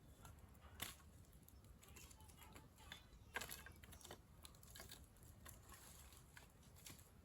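Faint, scattered small clicks and ticks over near silence, with two sharper clicks, one about a second in and one a little past the middle.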